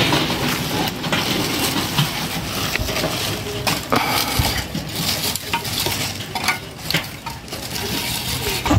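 Lumps of charcoal being tipped and handled into a metal coal stove, clattering and clinking irregularly against each other and the stove.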